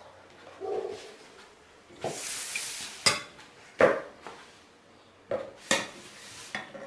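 Frying pan scraping across a tabletop, then about five sharp knocks as a kitchen knife and garlic cloves strike the pan.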